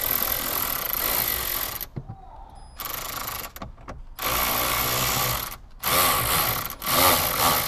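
A ratchet on a long extension and 10 mm socket backs out the bolts under the dash head unit. It clicks in five short bursts with brief pauses between them, the longest at the start.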